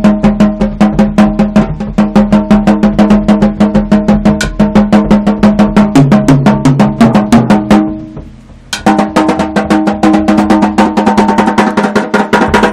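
A drum kit without cymbals, played in fast, even strokes of about seven a second, mostly on one drum. About halfway through, the strokes step down across lower-pitched drums. They break off briefly, then pick up again.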